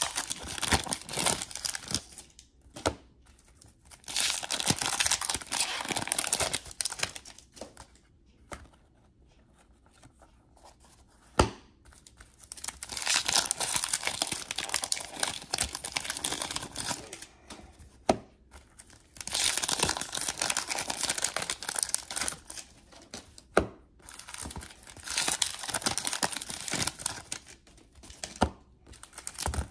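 Trading card pack wrappers being torn open and crinkled in repeated rustling bursts a few seconds long, with cards handled between them. There are a few single sharp clicks.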